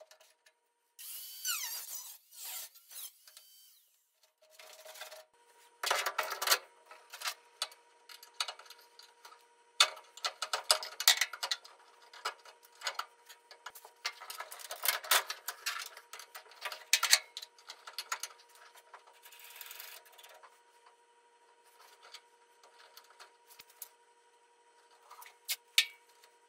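Hands-on work in a metal car body: irregular clicks, knocks and scraping of metal parts and tools being handled while coilover shocks are fitted, busiest in the middle. A faint steady hum comes in about five seconds in.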